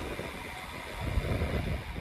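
Wind rushing over the microphone of a camera on a moving road bike, with gusty low rumbles about a second in, over a steady hiss of riding on tarmac.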